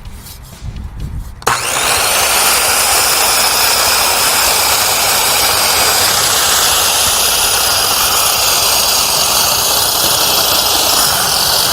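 7 1/4-inch circular saw with its blade set at a 45-degree bevel, starting suddenly about a second and a half in and then running steadily as it cuts a skirting panel along a marked line.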